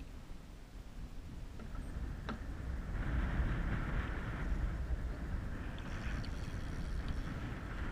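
Wind rumbling on the microphone and water washing against the side of a small fishing boat, with a hiss of water that swells about three seconds in, and a single sharp click about two seconds in.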